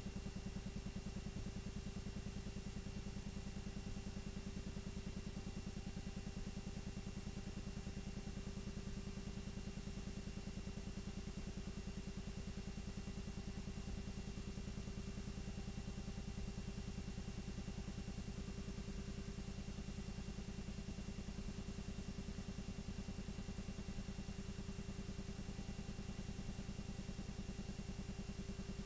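8mm film projector running: a steady mechanical hum with a fast, even clatter and a constant low tone, unchanging throughout.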